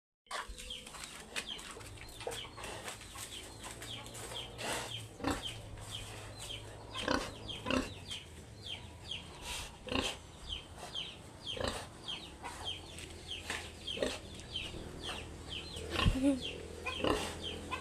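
Chickens chirping: a dense run of short, high, falling calls, two or three a second, with scattered knocks, the loudest about sixteen seconds in.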